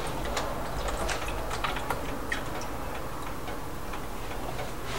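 Last drips of chicken broth falling from a carton into a metal pot: a few light, scattered ticks that thin out after about two seconds, over a steady low hum.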